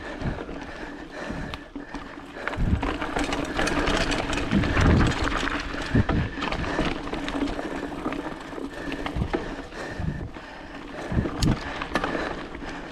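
Specialized Rockhopper 29er mountain bike being ridden on a rough dirt trail: tyres on dirt and the bike rattling and clicking over bumps, with repeated low thumps.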